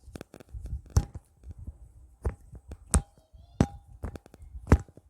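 Hands slapping and patting a person's body during a massage: five sharp slaps at irregular spacing over a few seconds, with softer thumps of hands on the body between them.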